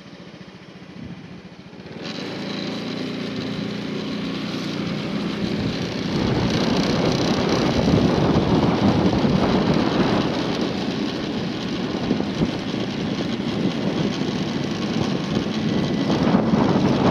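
Vehicle engine running as it gets under way, then wind rushing over the microphone and road noise as speed builds, stepping up about two seconds in and again about six seconds in.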